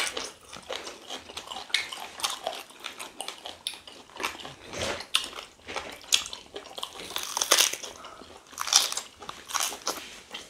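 Two people biting and chewing meat close to the microphone: irregular wet mouth smacks and clicks.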